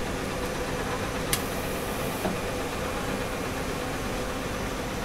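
Miyano BND-34S CNC turning center running, a steady mechanical hum with a faint steady tone. A sharp click comes about a second in, followed by about a second of high hiss.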